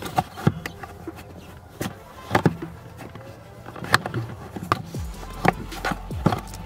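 Background music, with irregular plastic knocks and rubbing from a car's accelerator pedal assembly being handled and pressed back into place in the footwell.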